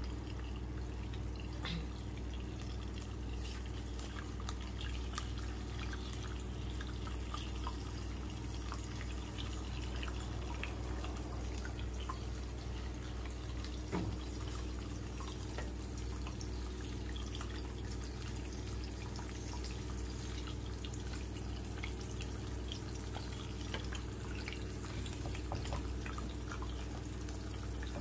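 Eggs frying in oil in a non-stick pan: a steady sizzle full of small scattered crackles and pops, over a low steady hum. One sharper knock comes about halfway through.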